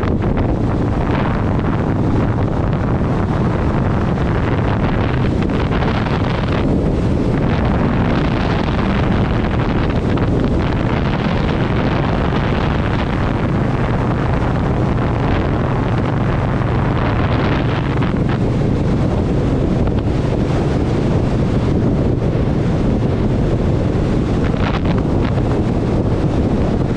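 Indian Scout Sixty's V-twin engine running at a steady note while riding, mixed with wind buffeting the microphone.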